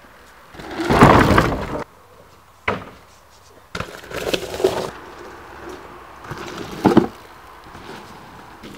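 Mountain bike riding over wooden plank ramps and a dirt trail: tyres rattling and knocking on the boards. There is a loud clatter about a second in, a sharp knock near three seconds, and more clatter around four and seven seconds.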